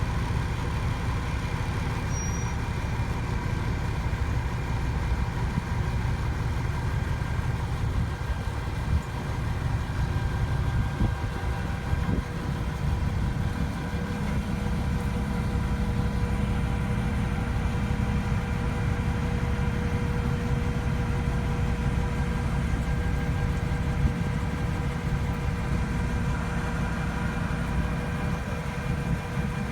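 An engine idling steadily, a low rumble with a constant hum over it.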